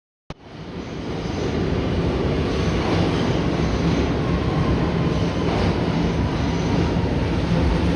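R211A subway train running, heard from inside the car: a click, then a steady rumble of wheels and motors that builds over about a second.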